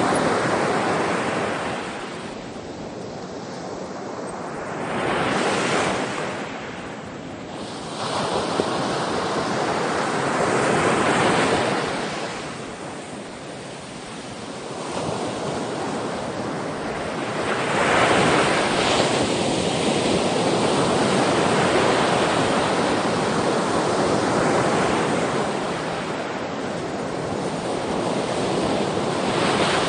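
Ocean waves breaking and washing up on a shore, the surf swelling and receding every few seconds, with some wind.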